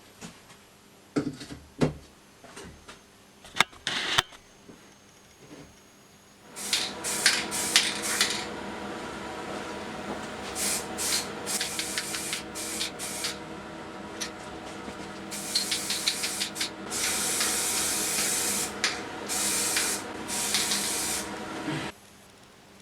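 A few scattered clicks and knocks, then a small motor starts and runs steadily with repeated bursts of hiss for about fifteen seconds, cutting off suddenly near the end.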